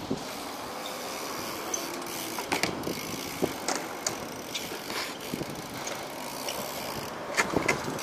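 Skatepark ambience: scattered light clicks and knocks from bikes and gear around the concrete park, over a steady background hiss, with a small cluster of clicks near the end.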